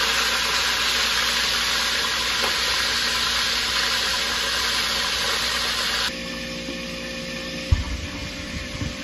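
Mojarras frying in hot oil: a steady, loud sizzle that cuts off suddenly about six seconds in, leaving a quieter steady hum with a few dull low thumps near the end.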